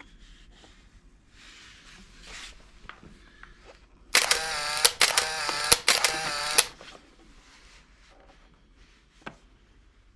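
A plastic cable tie being pulled tight through its ratchet: three quick, loud zipping pulls lasting about two and a half seconds together, with faint handling rustles before and after.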